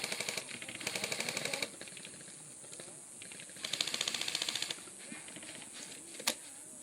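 Airsoft electric guns firing full-auto: three short bursts of rapid, evenly spaced ticking, the first right at the start, one about a second in and one about four seconds in, then a single sharp crack near the end.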